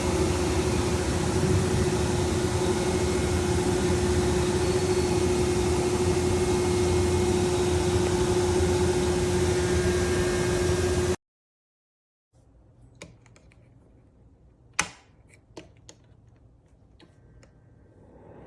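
Ceramic space heater's fan running on high: a steady rush of air with a constant hum. It cuts off abruptly about 11 seconds in, leaving a quiet room with a few sharp clicks.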